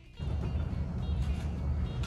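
Guitar background music cuts off at the very start, replaced by a steady low rumble of background noise.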